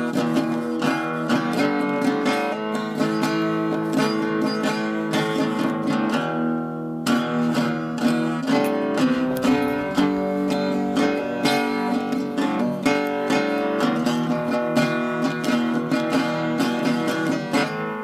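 Background music: acoustic guitar, plucked and strummed, with many notes picked in quick succession.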